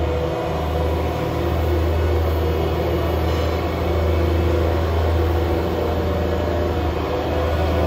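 Diesel engine of an HTM270 shunting locomotive running steadily as it slowly hauls a train out of the depot, a constant low drone.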